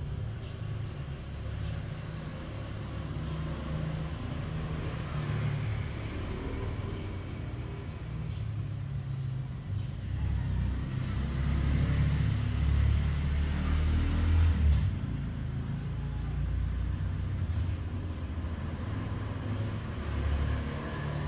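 Steady low rumbling background noise, swelling louder for a few seconds about halfway through.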